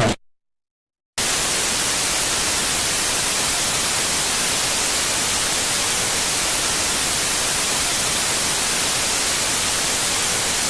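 Steady TV-static hiss, an even white-noise sound effect, starting about a second in after a short silence.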